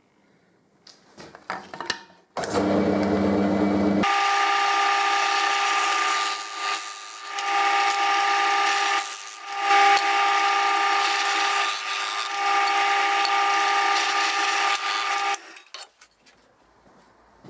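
Drill press starting up with a low hum, then, from about four seconds in, a wooden part worked against the spinning spindle: a loud, steady rough rubbing with a whine over it. It stops a little after fifteen seconds in.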